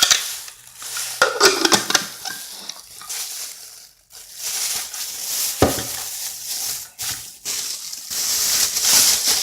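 Crinkly packaging rustling as items are handled and unwrapped, with a few light knocks.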